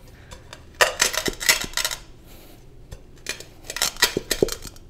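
Whole roasted coffee beans crunching and cracking under the base of a stainless steel pot pressed and twisted directly on them, with light metallic clatter from the pot. It comes in two bursts of grinding strokes, each lasting a second or so, with a pause between.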